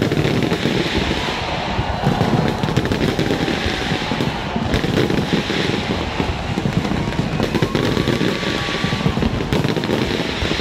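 Aerial fireworks bursting and crackling in a dense, unbroken run of bangs and crackle.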